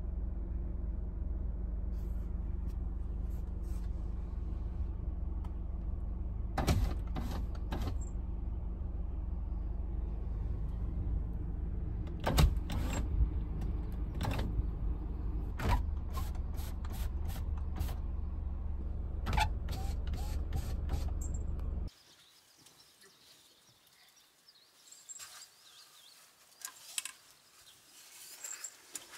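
Car engine idling, a steady low hum heard inside the cabin, with sharp clicks and taps now and then. It cuts off suddenly about two-thirds of the way through, leaving near-quiet with faint scattered taps.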